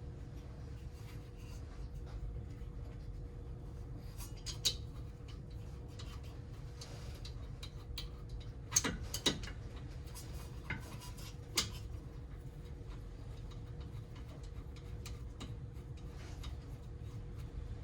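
A few light, sharp clicks and taps of brake parts being handled, four or five of them spread through the middle, against a steady low background hum.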